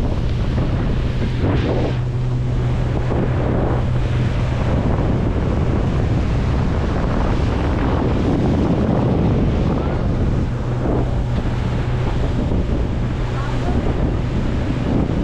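Motorboat under way: a steady low engine drone under wind buffeting the microphone and water rushing past the hull.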